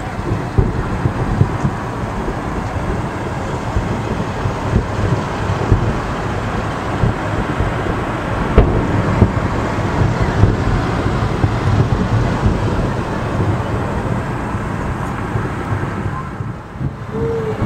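Aerial fireworks shells bursting: a dense run of booms and crackles that overlap into continuous noise, with many sharper bangs standing out. It eases briefly near the end.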